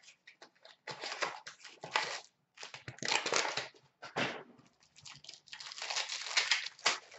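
Foil wrapper of a hockey-card pack crinkling and being torn open, in a run of irregular rustling bursts.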